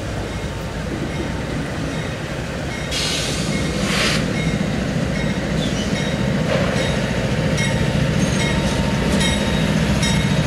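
Two Norfolk Southern GE diesel locomotives, NS 9044 leading NS 7554, run past at the head of an intermodal freight train. The engine drone grows louder as they approach and pass. There is a brief hiss about three seconds in, and from about six seconds on a light, even clicking of wheels over the rails.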